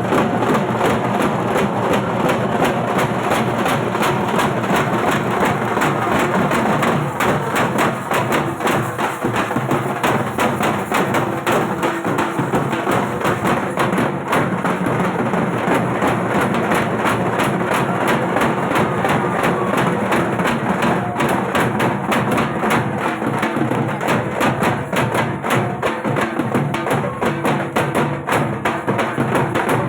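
Dhak, the Bengali barrel drum, beaten with sticks in a fast, unbroken rhythm of dense strokes.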